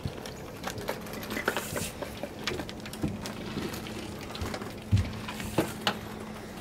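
A catfish in a landing net being hoisted from the water into an aluminum boat: dripping, splashing water and scattered knocks and clatter of the net, with a loud thump about five seconds in as it comes over the side. A faint steady hum runs underneath.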